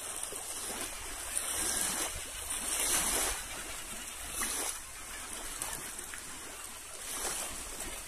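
Small waves lapping and washing against the rocks at the water's edge, swelling and easing every couple of seconds.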